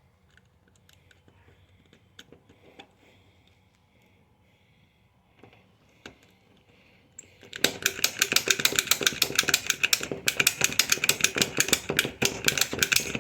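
Lock picking in a door's knob lock: faint scattered ticks of the pick working the pins, then about seven and a half seconds in a loud, rapid metallic clicking, many strokes a second, as the pins are raked.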